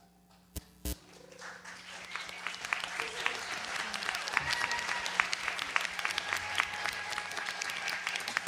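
Audience applause. It starts about a second in, after two sharp clicks, builds, and holds steady.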